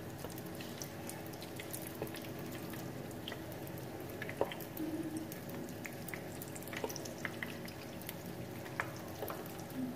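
Vietnamese spring rolls (nem rán) deep-frying in a pan of very hot oil: a steady sizzle with many small scattered pops and crackles, and a few sharper ticks.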